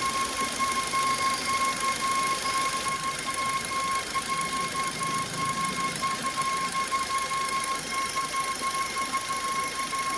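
Suzuki Ertiga petrol engine running with a steady high-pitched whine over the engine noise. The owner traces it to the belt tensioner or somewhere near it, and says it appears only after about half an hour of running, which a tensioner replacement has not cured.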